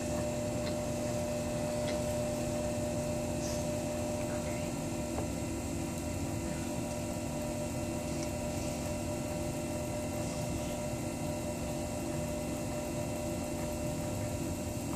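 Electric potter's wheel running with a steady motor hum while wet clay is centered and opened on it.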